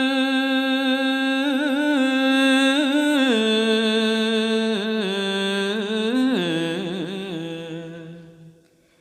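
A monk's solo voice chanting Khmer smot, unaccompanied. He holds one long note with wavering ornaments, steps down in pitch twice, then fades out near the end.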